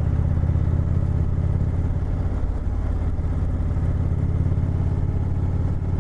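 2018 Indian Chieftain's V-twin engine running steadily while the motorcycle is ridden, a dense, even low rumble of firing pulses.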